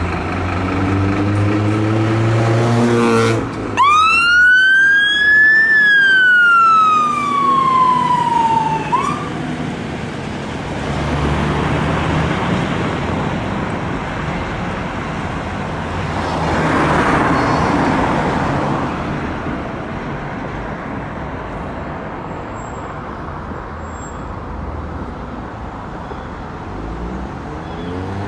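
Scania P270 fire engine's diesel engine revving as it pulls out, then its siren sounds one long wail, rising and then falling, the loudest sound here. After that the engine and passing traffic run on steadily as it drives away.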